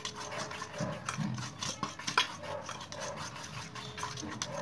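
A spoon beating cake batter in a stainless steel bowl: quick, repeated scrapes and clinks of metal against the bowl's sides.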